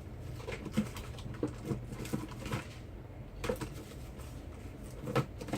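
Light, irregular clicks and taps from a phone and its parts being handled on a bench while a charging cable is connected to test the new charging port, over a steady low hum.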